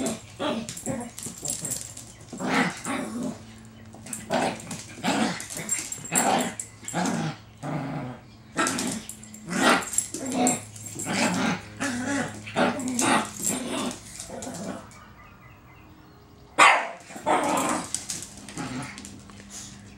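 A chihuahua growling and barking in short, irregular bursts while play-fighting with a cat. The bursts pause for a second or so about three-quarters of the way through, then resume with one sudden loud burst.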